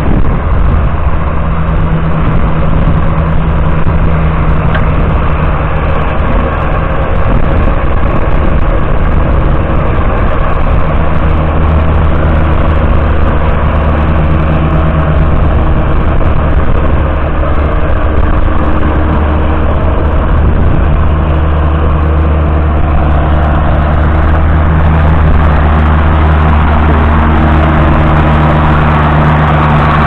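John Deere 7710's 8.1-litre six-cylinder diesel engine running steadily with a deep, even note, its lowest tones growing stronger about a third of the way in.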